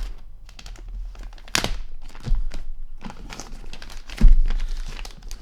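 Packaging being opened and handled on a tabletop: rustling with several knocks, the loudest a dull thump about four seconds in.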